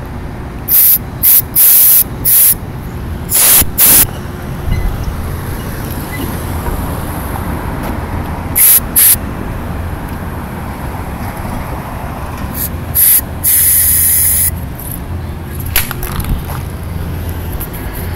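An aerosol can sprays in about ten short hissing squirts, some in quick pairs, with the longest, about a second, near the end. A steady low rumble of traffic runs underneath.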